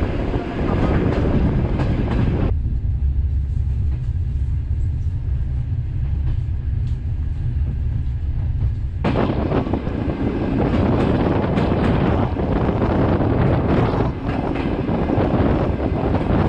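Moving passenger train heard from aboard its wagon: the wheels rumble and clack over the rail joints. For several seconds near the start it is muffled to a low rumble inside the carriage, then it opens up again into a loud rush of wind and wheel clatter at an open window.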